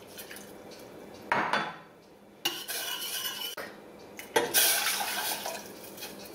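A metal spoon stirring and clinking in a small stainless steel saucepan while beef stock is poured in from a glass measuring cup. There is a sharp knock about a second in, then two longer spells of pouring and stirring, the second starting a little after the middle.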